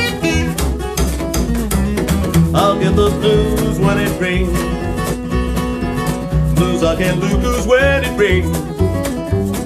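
Live acoustic blues band playing an instrumental break: steel-string acoustic guitar keeps the rhythm with a low bass line under it, and a harmonica plays a lead line that bends in pitch.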